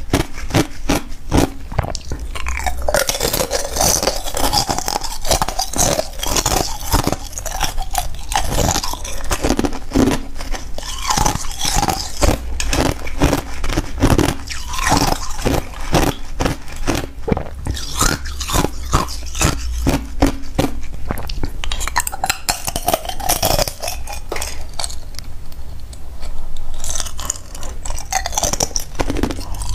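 Thin discs of clear ice bitten and chewed close to a clip-on microphone: a dense, continuous run of sharp cracks and crunches.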